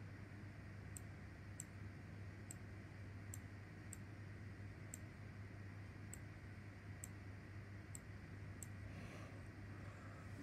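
Faint computer mouse clicks, about ten at uneven spacing roughly a second apart, over a steady low hum.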